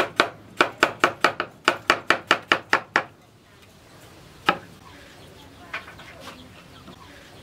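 Hand-forged cleaver made from a tractor plough disc chopping a green vegetable on a wooden cutting board in a fast, even rhythm of about four to five chops a second, stopping about three seconds in. About a second and a half later comes one louder single knock, then a few faint taps.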